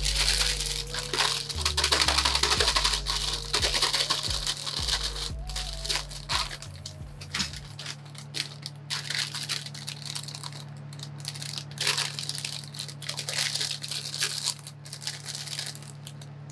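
Crinkling and crackling of a foil-lined Cheetos Flamin' Hot Crunchy snack bag being handled and torn open by gloved hands.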